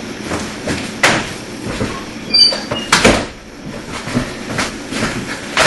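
Irregular knocks, clicks and rustling of things being handled close by, with one brief high squeak about two and a half seconds in.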